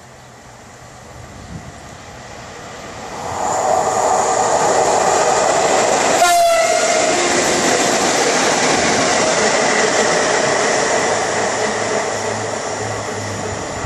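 Two ET22 electric locomotives running coupled in tandem pass close by: their running noise builds over about three seconds, peaks with a short, slightly falling tone as they go by about six seconds in, then fades slowly as they draw away.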